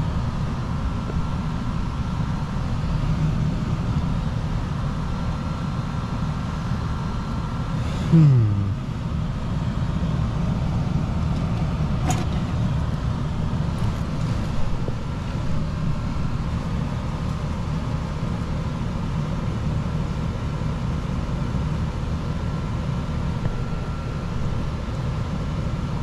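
Steady hum of running air-conditioning equipment, with a few faint constant tones. There is a short falling tone about eight seconds in and a sharp click about twelve seconds in.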